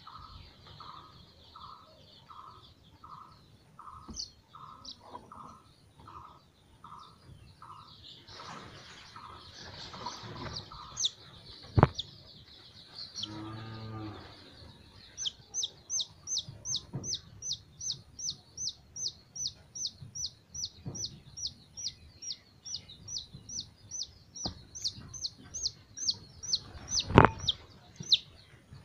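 A young chick held in the hand peeping loudly and rapidly, about three high, falling-off peeps a second, from about halfway on: distress calls of a restrained chick. A sharp knock near the end.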